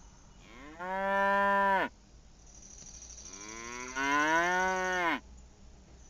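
Holstein dairy cow mooing twice: two long calls that rise in pitch, hold, and cut off, the second one longer than the first.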